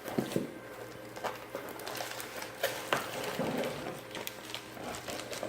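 Packaging being handled: scattered light taps, clicks and rustles of boxes and wrapping.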